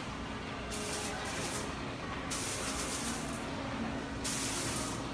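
Water fountain spraying in surges, three bursts of hissing spray about a second each, over a steady low hum.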